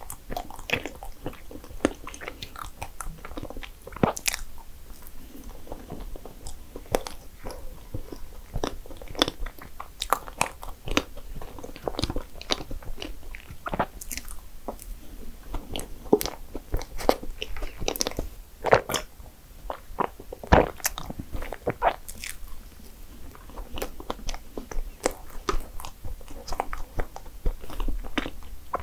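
Close-up eating sounds of a person biting and chewing desserts, with frequent irregular crunching clicks. The loudest bites come about two-thirds of the way through.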